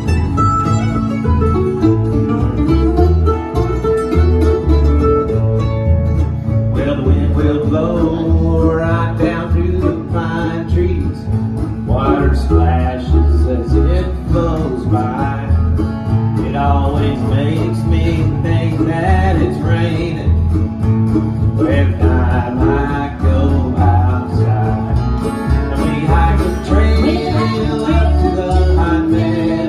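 Live acoustic string band playing: mandolin, acoustic guitars and upright bass. The opening seconds are instrumental, and singing comes in about seven seconds in and carries on over the band.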